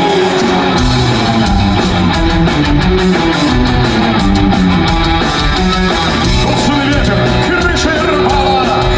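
Live rock band playing an instrumental passage of a song, with a stepping bass line coming in about a second in under sustained guitar and keyboard notes.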